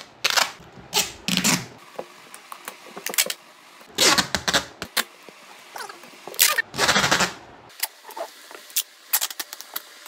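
Brown packing tape being pulled off its roll in several loud, crackling rips spread over the first seven or eight seconds, followed by small clicks and taps as the tape is handled.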